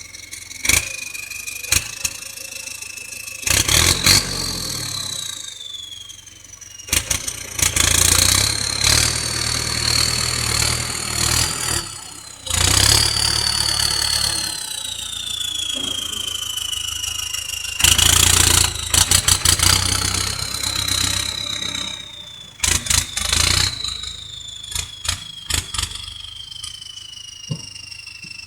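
Turbocharged Ford tractor engine revved about five times, the turbocharger whistle climbing quickly with each rev and then sliding slowly down in pitch as the turbo spools down between revs. Sharp cracks come during the revs.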